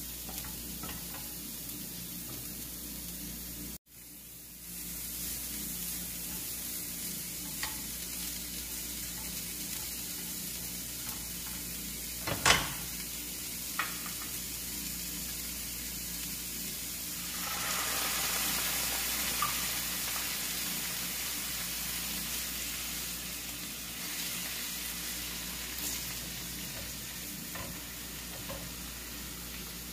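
Mushrooms, shallots and herbs sizzling in olive oil in a frying pan, with red wine added to reduce, while a silicone spatula stirs and scrapes the pan. The sizzle briefly cuts out a few seconds in, a sharp knock sounds near the middle, and the sizzle grows louder for several seconds past the halfway point.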